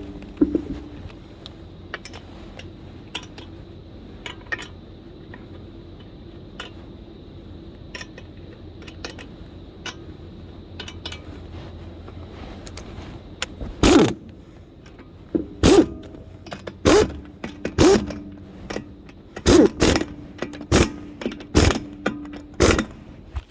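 Light scattered clicks and handling of wheel parts. About halfway through, a series of about ten short, loud bursts starts, some in quick pairs, as wheel nuts are run with a power tool during a tyre change.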